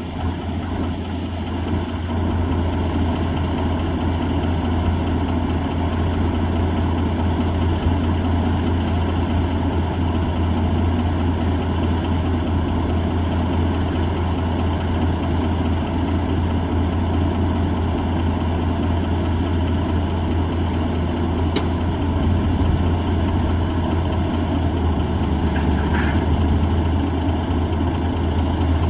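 Diesel engine of an M816 6x6 wrecker, a Cummins NHC-250 inline six, running steadily at low speed with an even, deep hum.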